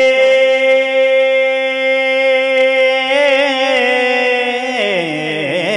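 A man singing a naat solo, drawing out the last syllable of a line on one long held note that starts to waver about three seconds in, then slides down in pitch near the end before climbing back up.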